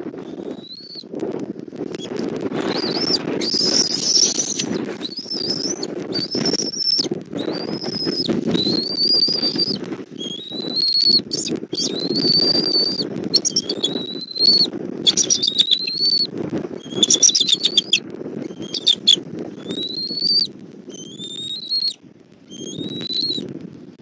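Bald eagles calling at the nest: a string of high, thin whistled calls, each rising then dipping, about one a second, with bursts of rapid chittering notes around the middle. Under the calls runs a steady low rustle, with wing movement as the eaglet mantles over its food.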